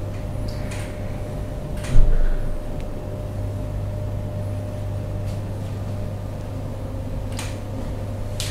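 A single loud thump about two seconds in, dying away quickly, over a steady low electrical hum, with a few faint clicks and rustles.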